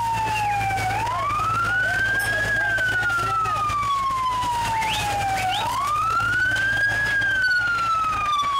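Emergency-vehicle siren wailing in a slow cycle: a quick rise in pitch, then a longer falling glide, repeating about every four and a half seconds. A low steady hum runs underneath.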